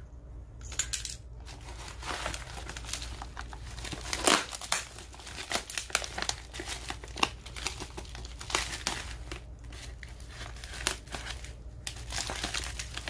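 Packing material being crumpled and torn open by hand: irregular crinkling and rustling with short tearing sounds.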